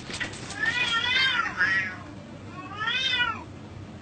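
Cats fighting, with a cat yowling in three rising-and-falling cries: two close together about a second in, and one more near the end.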